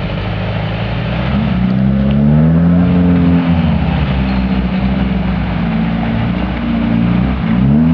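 Off-road 4x4 engine revving hard under load, its pitch climbing, dipping and climbing again, over a steady rushing noise, as the vehicle works to drive out of an obstacle.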